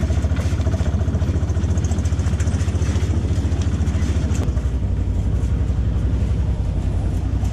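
Farm truck's engine running with a fast, even low throb, heard from the open cargo bed while driving; the sound changes about four and a half seconds in.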